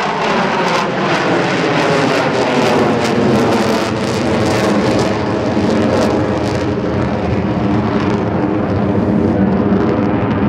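Jet noise from four F/A-18 Hornets flying together in diamond formation through a loop with gear and flaps down. The pitch falls in the first second as they pass, then the noise holds steady with a low rumble and a ragged crackle in the middle seconds.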